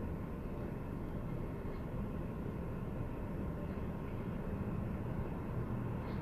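Steady low background rumble, even throughout, with no distinct events.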